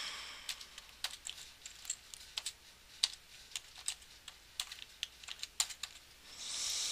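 Typing on a computer keyboard: a run of irregular keystrokes as a passphrase is entered, followed by a soft hiss near the end.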